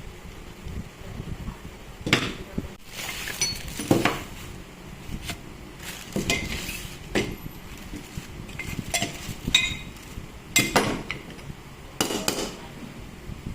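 Metal parts and hand tools clinking and knocking against each other and a work surface: about a dozen irregular taps and clinks, some ringing briefly, as a cordless hedge trimmer is worked on by hand.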